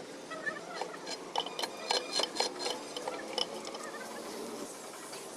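A quick series of light metallic clicks and taps, several with a short ring, over the first three and a half seconds or so, then only a steady background.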